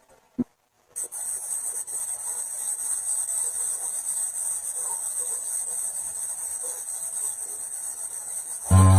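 A short click, then a steady high-pitched hiss for about eight seconds, cut off near the end by music.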